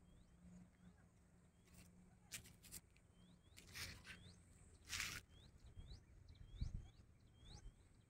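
Faint bird calls: short rising chirps repeated two or three times a second. A few brief bursts of rustling or wind noise cut across them, the loudest about five seconds in.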